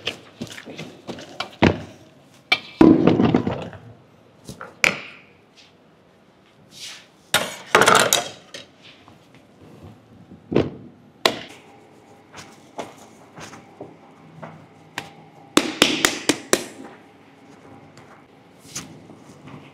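Soft, sticky bread dough being kneaded by hand in a stainless steel bowl: irregular wet slaps and squelches with sharp knocks as the dough is worked and thrown against the bowl, loudest in three longer spells.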